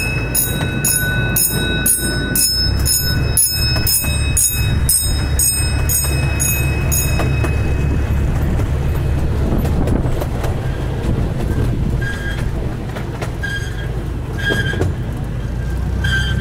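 Miniature park train running, a steady low rumble from the locomotive and cars on the track. A bell rings in even strokes, about two a second, and stops about seven seconds in. Short high-pitched tones sound a few times near the end.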